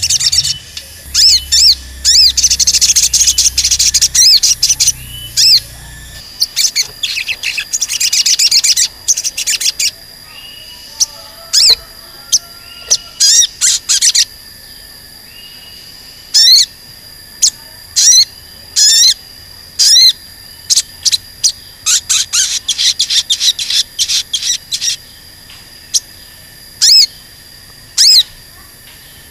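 Olive-backed sunbird (sogon) calling with sharp, high 'cuit cuit' chirps. A dense run of rapid chirps comes first, and from about ten seconds in it gives way to single chirps and short pairs spaced about a second apart.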